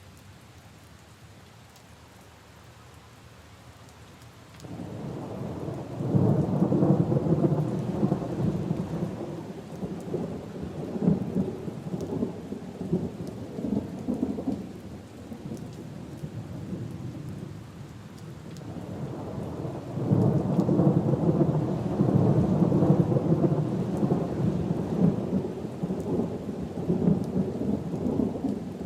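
Rain falling steadily, with thunder rolling in: a long loud low rumble starts about five seconds in and eases off, and a second loud rumble builds again from about twenty seconds in.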